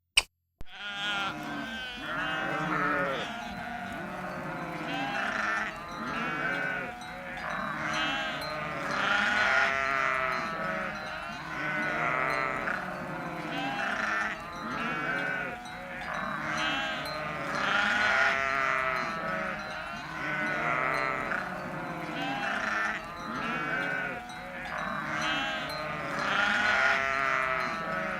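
A flock bleating: many overlapping calls, swelling and fading every few seconds.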